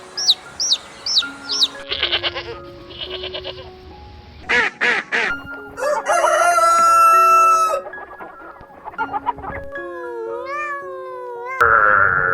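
A quick succession of different animal and bird calls over background music with held melodic notes. It opens with a run of repeated short chirps, then several separate calls follow, the loudest a long steady-pitched call about six to eight seconds in.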